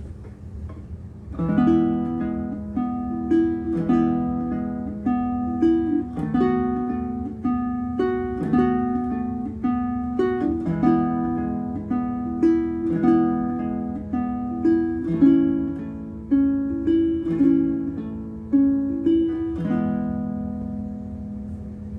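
Bruko mahogany baritone ukulele played solo, a fingerpicked melody over chords, starting about a second and a half in and ending on a ringing chord that fades. It has a new bone saddle, which the owner says gives it more volume and resonance and a slightly brighter tone.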